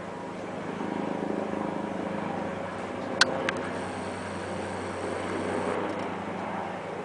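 Helicopter flying overhead, its engine and rotor making a steady mechanical noise, with two sharp clicks a fraction of a second apart about three seconds in.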